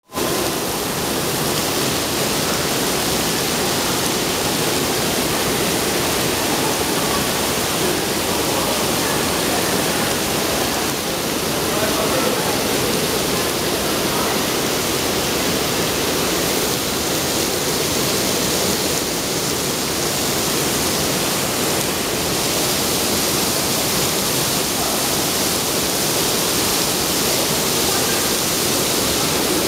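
Dense artificial rain from the Rain Room installation pouring down and splashing onto the floor: a steady, even rush of falling water.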